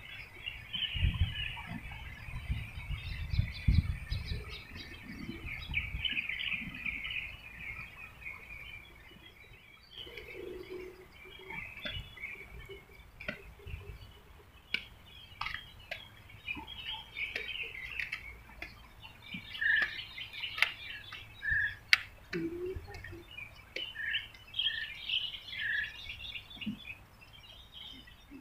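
Small birds chirping and twittering, with a series of clear, short whistled notes in the second half. A low rumble sits under the first several seconds.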